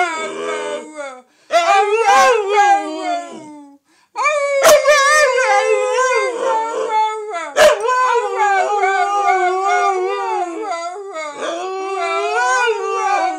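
A wolf-dog howls long, wavering howls, with other voices howling along at different pitches. The howling breaks off briefly about a second in and again near four seconds, then runs on. Two sharp clicks cut through it, about five and eight seconds in.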